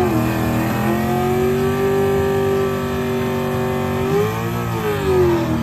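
A red Ford Mustang's engine held at high revs during a burnout, its rear tyres spinning and smoking. About four seconds in, the revs rise and drop once.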